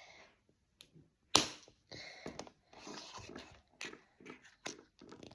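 Slime with beads mixed in, squished and worked by hand: a run of short, sticky crackling squishes and small clicks, with one sharp click about a second and a half in.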